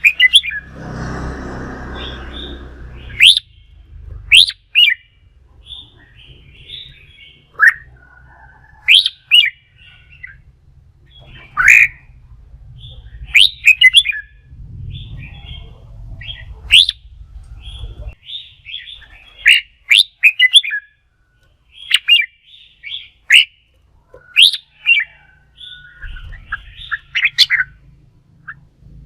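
Red-whiskered bulbul song: short, loud whistled phrases repeated every second or two. A rushing noise fills the first three seconds.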